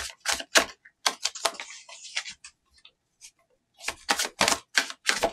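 Tarot cards being shuffled by hand: quick sharp card snaps in two bursts, with a brief papery rustle about a second in and a lull in the middle.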